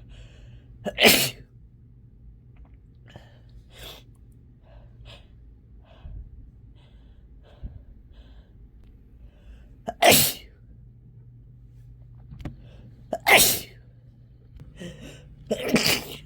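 A person's itchy, runny nose making four loud, short, sharp nasal bursts: one about a second in, one about ten seconds in and two near the end. Softer, shorter nose and mouth sounds come between them.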